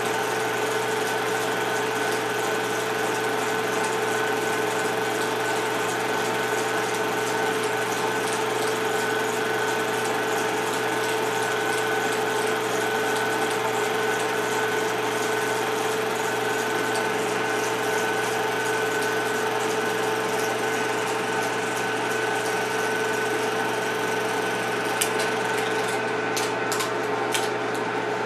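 Film projector running: a steady motor whir with a constant hum, and a few sharp clicks near the end.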